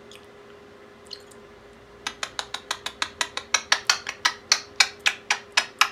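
A rapid series of sharp clicks or taps, about six a second, starting about two seconds in and getting louder partway through, over a faint steady hum.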